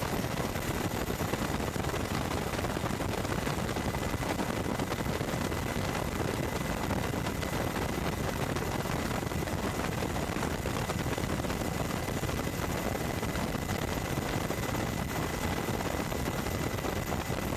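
Steady, loud rumble and rush of helicopter rotor, engine and wind noise, with a faint high whine held steady over it.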